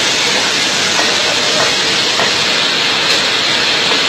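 Loud, steady rushing of water, an even hiss with no break.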